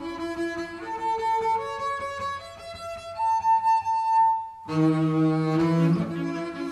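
Viola and double bass playing a classical duet. A bowed melodic line climbs to a long held high note, breaks off briefly just before five seconds in, then both instruments come in together with the bass playing low beneath.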